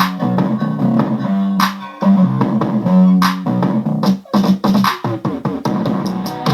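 Bass-boosted music with a plucked bass line and sharp percussive hits, played loud through Logitech Z200 desktop stereo speakers.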